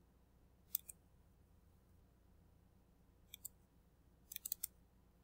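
Computer mouse clicking over near silence: a couple of clicks about a second in, another pair about three seconds in, and a quick run of clicks a little after four seconds.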